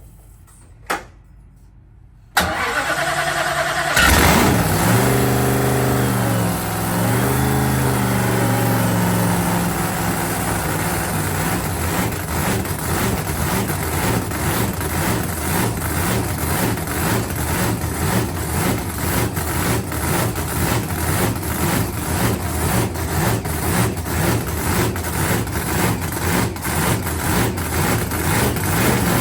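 Pro Mod drag-racing engine of a 2006 Dodge Viper on its first start of the season: a single click, the starter cranking for about a second and a half, then the engine catches. It is blipped up and down a few times, then settles into a loud, choppy, lopey idle.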